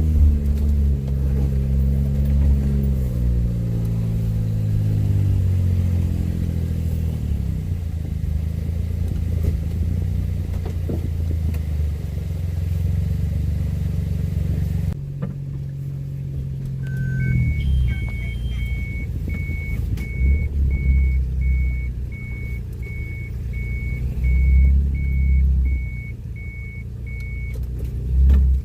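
Vehicle engine running, its pitch dropping over the first several seconds and then holding steady. About halfway through, a single beep is followed by a regular row of high electronic warning beeps, roughly one every two-thirds of a second for about ten seconds, while the engine revs up and down.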